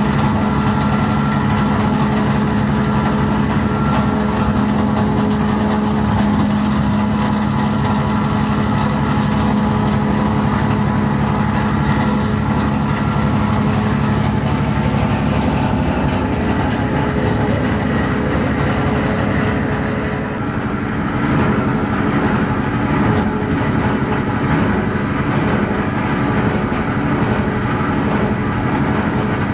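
Heavy machinery or a large motor running steadily with a constant hum. The tone shifts and the level dips briefly about twenty seconds in.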